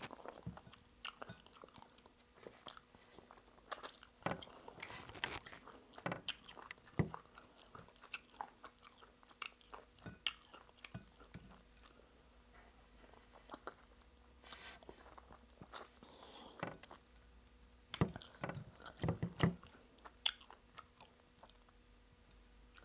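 A person eating close to the microphone: irregular wet mouth clicks and smacks of chewing soft starch with egusi soup, busiest for a few seconds early on and again near the end.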